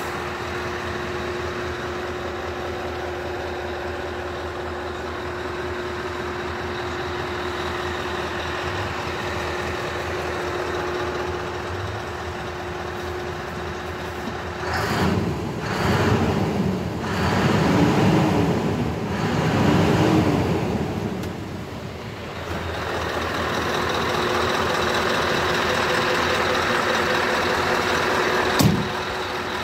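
Heavy truck engine running steadily. About halfway through it swells louder several times, the pitch rising and falling, and there is one sharp click near the end.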